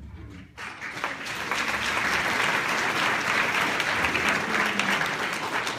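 Audience applauding: the clapping starts about half a second in, swells to a steady level, and begins to die away near the end.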